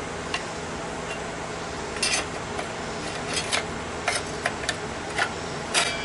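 Light metallic clicks and clinks, about half a dozen spread through the second half over a steady background noise. They come from a 24-tooth carbide-tipped blade being seated on a circular saw's arbor and handled inside its guard.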